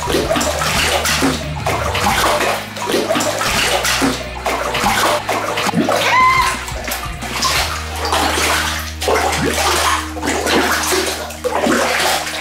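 Wet slime squelching, sloshing and splattering in irregular bursts, with background music playing underneath.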